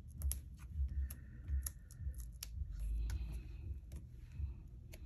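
Small paper-craft pieces handled on a wooden tabletop: sharp clicks and taps with short spells of light rustling and a few low thuds, as foam adhesive squares are peeled and stacked.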